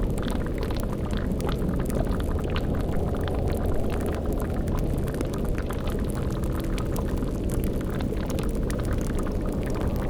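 Layered spooky ambience: a steady deep rumble under scattered crackles and pops, like a bubbling cauldron over a crackling fire.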